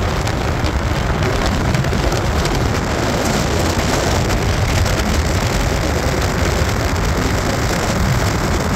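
Ford pickup driving on a gravel road: a steady rumble of tyres and engine with a constant crackle of gravel under the tyres.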